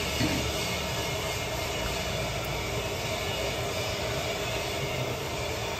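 A steady mechanical drone with a constant low hum and a faint held tone, even in level throughout.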